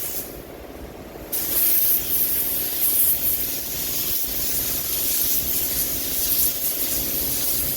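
Air spray gun hissing as it sprays automotive paint, most likely the clear coat, with the trigger let off for about a second near the start. A steady hum runs underneath.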